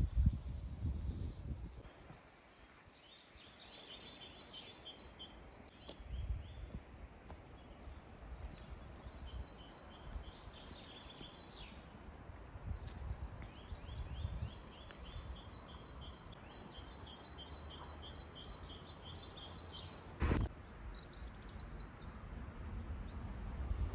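A songbird singing two long passages of rapid trilled notes, over a low rumble of wind or handling on the microphone. A single sharp knock comes near the end.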